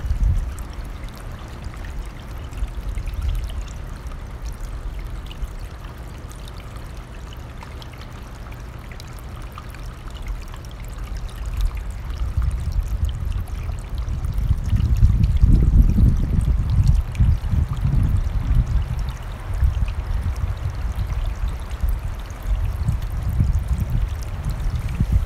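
Running stream rushing steadily, with gusts of wind buffeting the microphone in a low rumble that grows stronger about halfway through.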